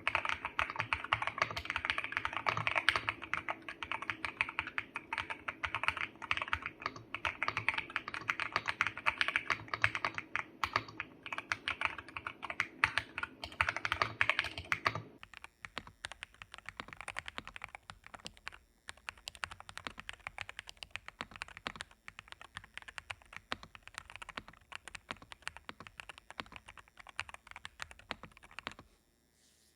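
Fast, continuous typing on a GMK67 mechanical keyboard with Akko Cream Yellow V3 Pro linear switches and double-shot PBT keycaps, tape-modded and foam-dampened, giving dense rapid key clacks. About halfway through the typing suddenly becomes much quieter and continues.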